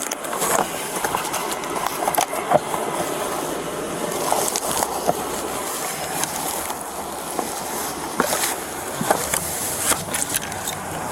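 Irregular clicks, knocks and rustling of things being handled and rubbed close to a body-worn camera's microphone.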